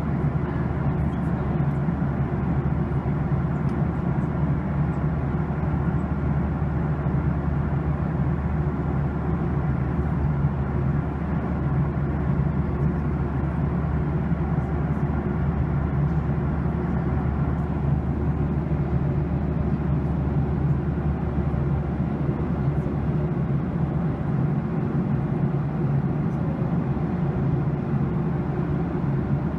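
Steady cabin noise of a jet airliner in cruise: an even roar of engine and airflow with a constant low hum.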